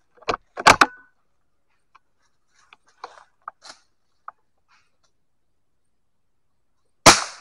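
Sharp clacks in the first second, a few faint clicks, then a single loud crack with a short tail about seven seconds in: an air rifle firing at a squirrel.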